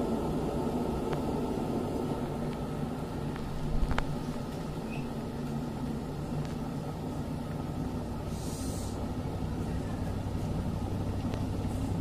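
Electric kettle with water at a full rolling boil: steady rumbling and hissing, with a short knock about four seconds in. Its thermostat switch has not yet clicked off.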